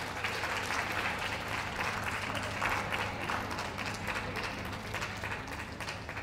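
Audience applauding: a dense patter of many hands clapping that gradually fades toward the end.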